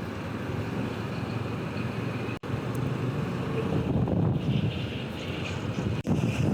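Slow-moving city road traffic with wind buffeting a clip-on microphone: a steady low rumble of engines and road noise. The sound cuts out for an instant twice.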